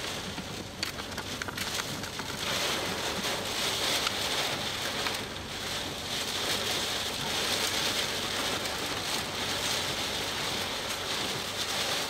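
Wind-driven rain pelting a storm chasers' vehicle at the edge of a tornado: a steady rushing hiss with scattered sharper ticks of drops striking.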